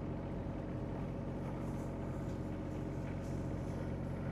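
John Deere mini-excavator's diesel engine running steadily, a continuous even hum with no change in pitch.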